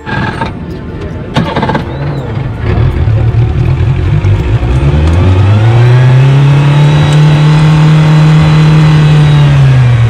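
Yamaha outboard motor running unevenly at low revs, then throttled up about four and a half seconds in: its pitch rises and then holds steady as the boat gets under way. A few knocks in the first couple of seconds.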